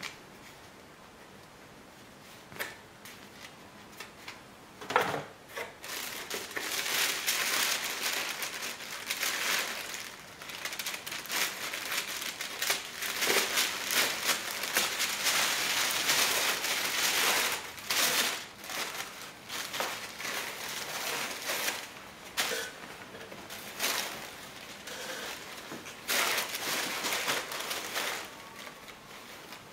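Tissue paper rustling and crinkling as a box is unpacked, in stretches of handling with short pauses between them, and a sharp click about five seconds in.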